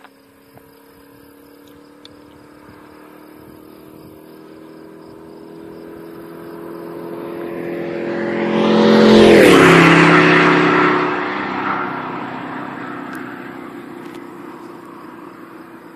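1976 Corvette Stingray's L82 350 (5.7 L) V8 accelerating hard in fourth gear past the listener at over 100 mph. The engine note grows louder and climbs slowly as the car approaches, then drops sharply in pitch as it goes by about nine seconds in, with a rush of tyre and wind noise at the peak. Then it fades away.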